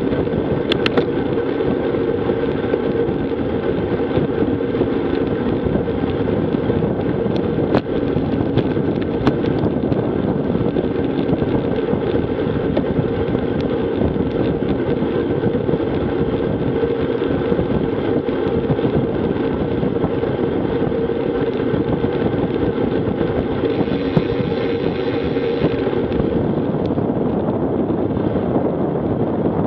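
Steady wind rush over a bike-mounted action camera's microphone while riding at about 20 mph, with road-bike tyre hum underneath and a few light ticks.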